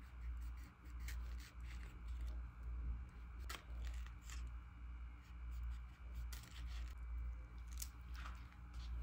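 Kitchen knife cutting through a peach, with small clicks and scrapes of the blade on the fruit and plate, the sharpest about a third of the way in and near the end. A low throb repeats about twice a second underneath.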